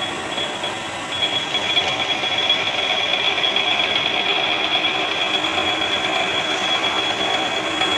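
Drilling machine running as it drills a 10 mm hole, a steady high-pitched whine over machine noise, which breaks off briefly about a second in and then carries on.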